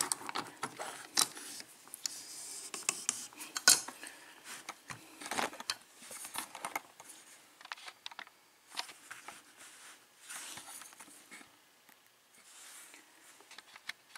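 Sharp metallic clinks, knocks and scrapes as a ball-joint bench vise clamping a lock cylinder is handled and repositioned. Loudest and most frequent in the first few seconds, then sparser and fainter.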